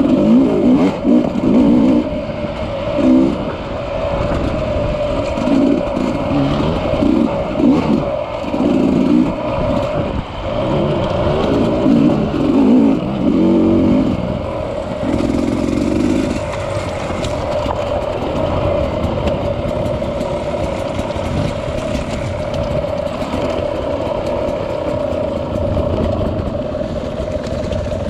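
Dirt bike engine heard from on the bike while riding a rough trail. The revs rise and fall with the throttle through roughly the first half, then run more evenly.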